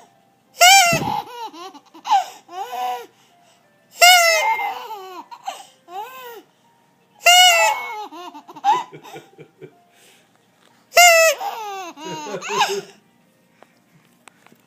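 A small child laughing in shrieks: four loud, high-pitched bursts roughly three and a half seconds apart. Each falls in pitch and trails off into smaller giggles, and the laughter dies away near the end.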